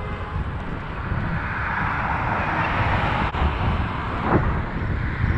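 Wind rumbling on the microphone of a moving bicycle, with a road vehicle passing by, its noise swelling and fading between about two and four seconds in.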